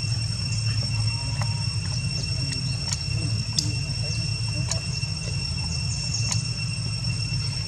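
Steady outdoor background: a low rumble with a thin, steady high-pitched drone above it, like insects, and a few faint scattered clicks.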